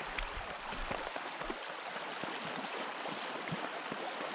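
River water rushing steadily over shallow riffles.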